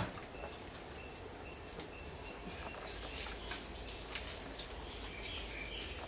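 Outdoor insect ambience: a steady high-pitched drone, with a short chirp repeating about twice a second during the first couple of seconds, and a few faint clicks later on.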